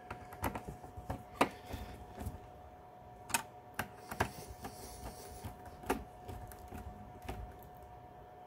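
Small screwdriver clicking and scraping against the screw heads of a power supply's screw terminal block as the mains wires are tightened down: a dozen or so sharp, irregular clicks.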